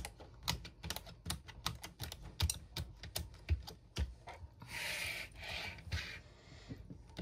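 Pages and a plastic sheet protector being worked onto the plastic discs of a disc-bound planner: a run of light, irregular clicks and taps, with two brief papery rustles about five and six seconds in.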